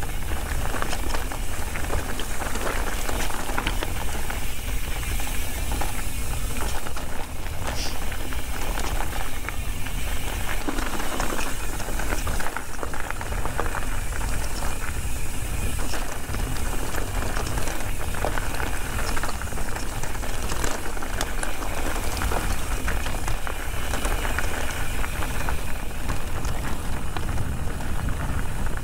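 Ibis Ripmo V2 full-suspension mountain bike descending fast over a loose, rocky trail: a continuous crunch and clatter of tyres over gravel and stones, with the bike rattling over the chunk and a steady low rumble from wind and bumps on the camera's microphone.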